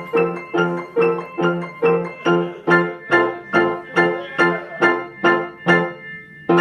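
Piano playing a steady run of repeated chords, about two and a half a second, with a short pause near the end before another chord is struck.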